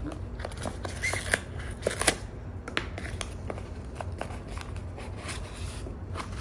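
Cardboard packaging being handled: a card insert and a small paperboard box scraped and slid out of a gift box, a run of rustles and light clicks, the sharpest about two seconds in.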